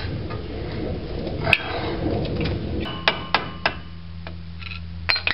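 Hand tools clinking on the bolts of the rear driveshaft-to-differential flange: a sharp ringing metallic clink about a second and a half in, then a quick run of three clinks and one more near the end.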